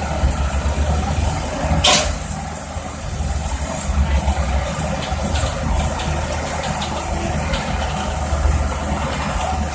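Hitachi tracked excavator's diesel engine running steadily with a pulsing low rumble while it works. A single sharp clank cuts through about two seconds in, and a few faint clicks follow.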